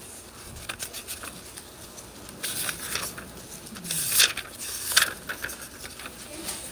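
Paper pages rustling and being turned, in several short papery swishes, the loudest about four seconds in.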